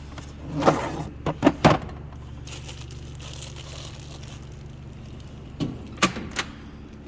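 Metal knocks and clanks from tools and a toolbox drawer being handled: a quick cluster about a second in, a few more near the end, over a steady low hum.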